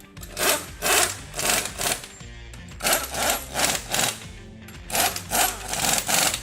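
Impact wrench running three flange nuts onto wheel studs in short trigger pulls: three groups of about four hammering bursts each. Background music plays underneath.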